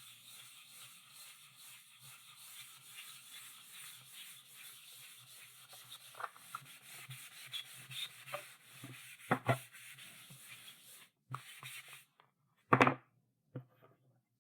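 Chalk writing on a blackboard: a continuous dry scratching of strokes with sharper taps mixed in. The scratching stops about twelve seconds in, followed by a few separate knocks, one much louder than the rest.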